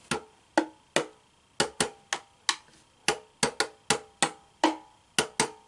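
Homemade tube drums, cardboard and plastic tubes of different lengths with taped-on membrane heads, tapped with a thin stick: about fifteen quick, uneven taps, some giving a short tone. The drums sound at different pitches because the tubes differ in length.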